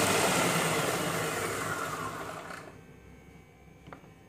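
Silvercrest Monsieur Cuisine Connect food processor blending mayonnaise at speed 7, then winding down after being stopped, its whine falling in pitch and fading out over about two and a half seconds. A faint click follows near the end.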